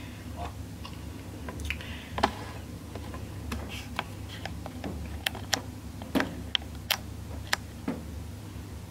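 Scattered light clicks and taps at irregular intervals over a low steady hum, heard close to the microphone.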